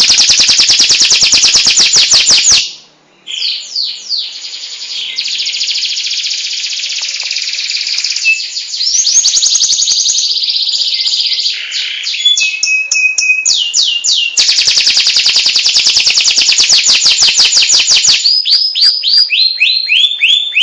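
Domestic canary singing a loud, continuous song of rapid trills and fast repeated high notes, with a brief break about three seconds in.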